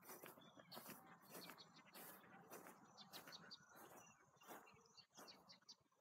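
A large flock of birds calling at once, faint: many short chirps overlapping in a dense, continuous chatter.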